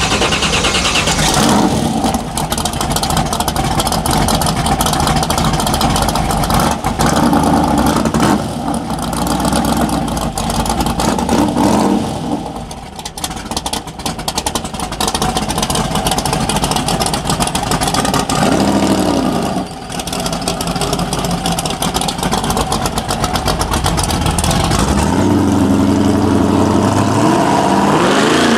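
American muscle car V8 engine running and being revved, the engine note rising and falling several times between steadier running.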